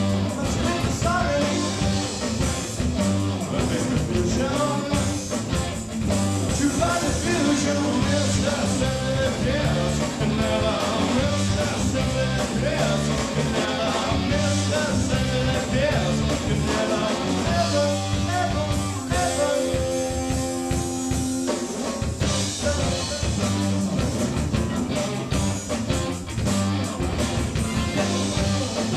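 A rock band playing a song: a sung vocal over guitar and drums. About two-thirds of the way through, the voice drops out for a few seconds while held guitar chords carry on.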